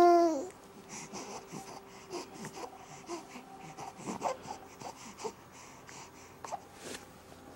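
A young baby's loud, held squeal that drops in pitch and breaks off about half a second in, followed by soft grunts, breaths and small vocal noises.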